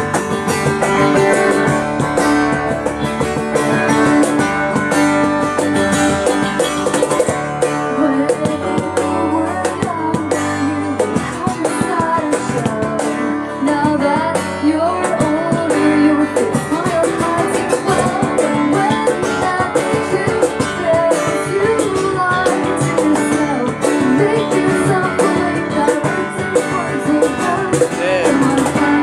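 A small band playing a song live: keyboard, electric bass and guitar, joined by a woman singing lead into a microphone about ten seconds in.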